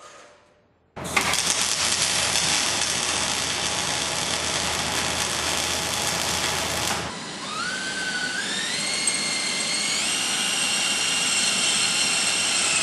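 Arc welding on a steel tube frame: an even crackling hiss that starts suddenly about a second in and cuts off sharply about six seconds later. Then a cordless drill boring into the steel, its motor whine rising in pitch in several steps as the trigger is squeezed harder.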